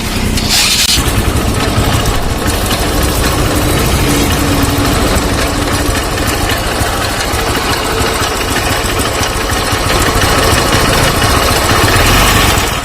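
TVS Metro Plus 110 motorcycle's single-cylinder four-stroke engine running steadily with an abnormal, loud mechanical noise. The noise has persisted despite new engine bearings and connecting rod and re-welded silencer partitions.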